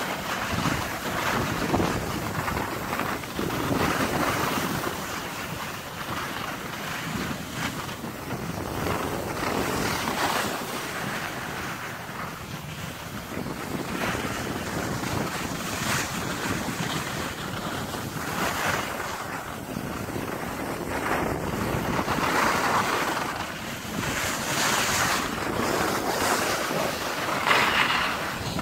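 Wind buffeting the microphone while descending a ski slope, mixed with the hiss and scrape of edges on packed snow. The noise swells and eases every few seconds.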